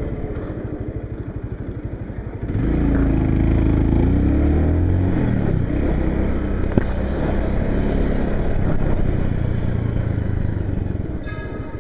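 Two-stroke motorcycle engine ticking over with a fast, even pulse, then revving up and pulling away about two and a half seconds in, its pitch rising and falling as it accelerates, then running steadily. A short high tone sounds near the end.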